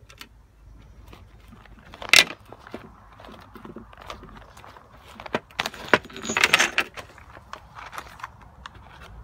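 Handling noise close to the microphone: clicks and rustling as hands work a small cardboard box and a sheet of lined paper. There is a sharp click about two seconds in and a longer rustle of paper near two-thirds of the way through.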